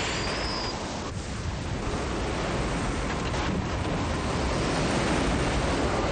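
Steady rushing noise of strong tornado winds.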